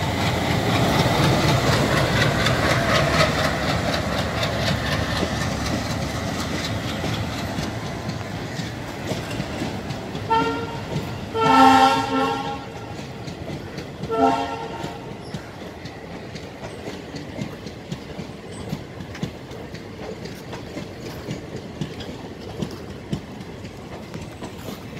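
WDM3A ALCO diesel locomotive's engine running as it pulls past, fading as the empty coaches follow, their wheels clicking steadily over the rail joints. A train horn sounds three times about ten to fifteen seconds in: a short blast, a longer one, then another short one.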